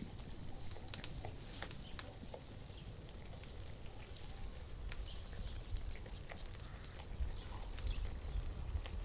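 Tomato sauce simmering in a hot cast iron pan, a faint sizzle with scattered small pops.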